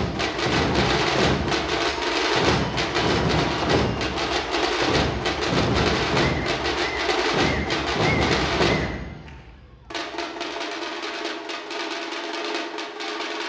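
A dhol-tasha ensemble drumming: big barrel dhols and small tasha drums beaten with sticks in a fast, dense, loud rhythm. The drumming breaks off about nine seconds in, and a lighter rhythm follows over a steady held tone.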